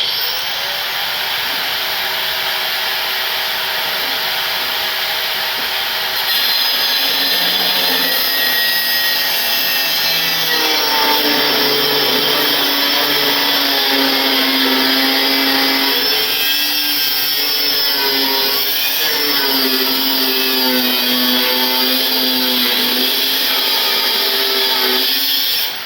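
Handheld power tool cutting through the buggy's rusted metal frame tube, running continuously for the whole cut. Its motor pitch dips and recovers as it bogs under load, and it stops abruptly near the end as the cut nears completion.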